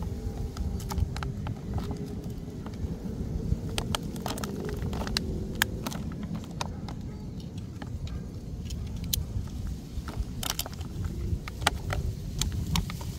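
Clear plastic blister packaging crinkling and crackling as it is handled and pulled open, with irregular sharp clicks, over a steady low rumble.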